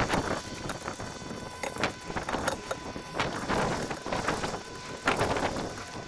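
Long-handled brush scrubbing over concrete roof tiles, working in a surfactant and biocide solution, in irregular swishing strokes about every half second.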